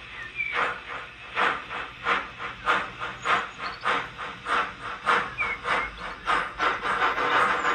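Steam locomotive exhaust chuffs from the two sound-equipped HO scale model steam locomotives working a train, a rhythmic hissing puff about three times a second, slightly uneven where the two engines beat out of step. A few faint bird chirps sound over it.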